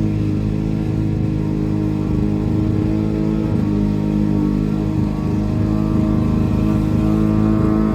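Small lawn mower engine running steadily at working speed.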